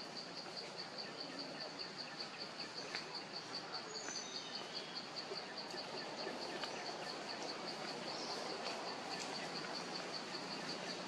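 An insect calling without a break: a high-pitched trill of rapid, even pulses over a steady haze of forest ambience. A few brief high chirps come about four seconds in.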